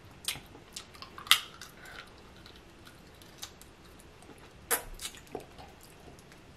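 Close-up eating sounds from snow crab legs: a few scattered wet clicks and smacks, with two louder sharp snaps about a second and a half in and near the three-quarter mark.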